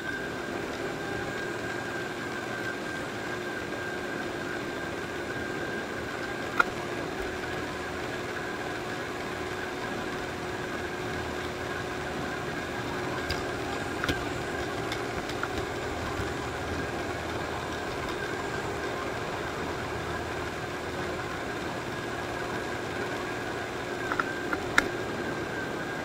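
Robot vacuum running: a steady whirring hum from its motor and brushes, with a few sharp clicks, the loudest about six and a half seconds in and a small cluster near the end.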